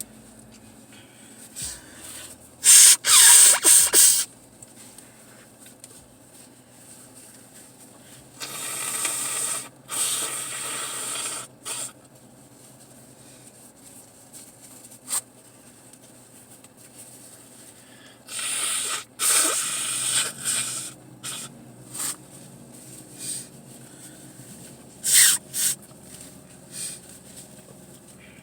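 Several hard, hissing breaths through the nose, each lasting one to two seconds: the loudest about three seconds in, two close together around nine to eleven seconds, another near twenty seconds and a short one near twenty-five seconds.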